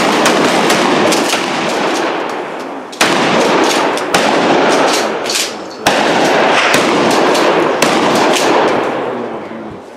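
Several shotgun blasts from a line of shooters firing on command, a few seconds apart, each one sharp and followed by a long, loud echo that slowly dies away.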